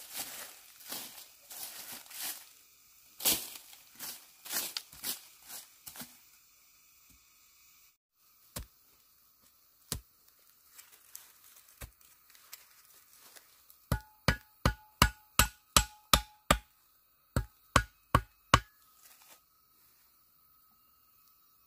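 Rustling and crackling, then sharp chopping or hammering strikes. A few single knocks are followed, past the halfway point, by a quick run of about a dozen ringing knocks at roughly three a second.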